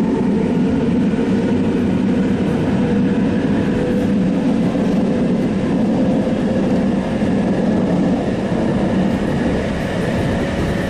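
Kintetsu electric train running, heard from inside the front car: a steady rumble of wheels on rails with a faint steady whine.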